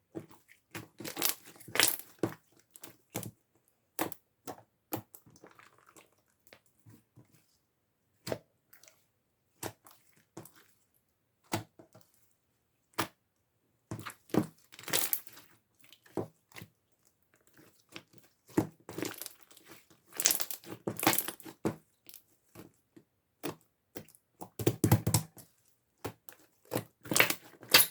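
Clear slime being squished and pulled by hand, giving sticky pops and crackles in irregular bursts with short quiet gaps between them.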